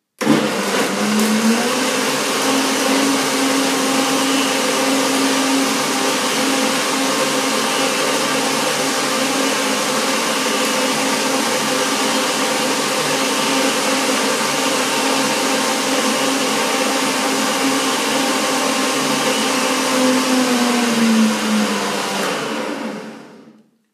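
Countertop blender blending a fruit-and-greens smoothie: the motor starts, rises slightly in pitch over the first second as it spins up, runs steadily for about twenty seconds, then falls in pitch and winds down to a stop near the end.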